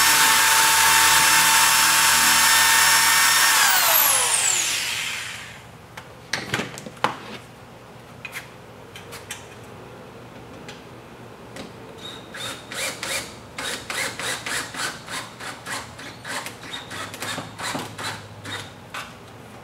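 Corded electric drill running at full speed, then released about three and a half seconds in and spinning down with a falling whine. A couple of sharp knocks follow, then a quick run of short clicking bursts as screws are driven into the shutter's aluminium guide rail.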